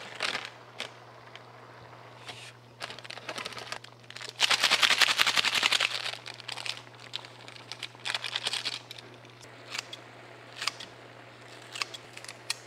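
Crinkling and rustling of instant-ramen packets being opened and emptied, loudest in a dense crinkly burst about four seconds in, with scattered clicks and light snips of kitchen scissors near the end. A steady low hum runs underneath.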